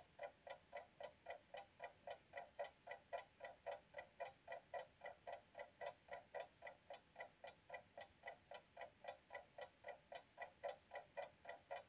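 Clock ticking steadily and faintly, about four ticks a second.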